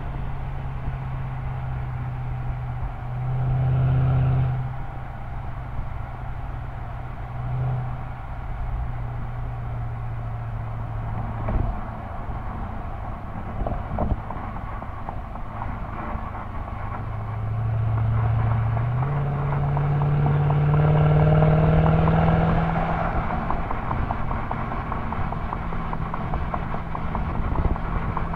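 Exhaust of a 2006 Mercedes-Benz CLS55 AMG's supercharged 5.4-litre V8, heard from between the rear tailpipes, droning steadily at highway speed over road and wind noise, with brief swells about four and eight seconds in. About nineteen seconds in the engine note steps up in pitch and grows louder for a few seconds, then settles into a higher, steady drone.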